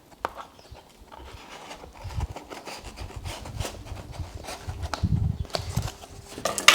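Hands working open a sealed mail-order parcel: scattered small clicks and rustles of the packaging, with dull low bumps of handling through the middle and a sharp click near the end.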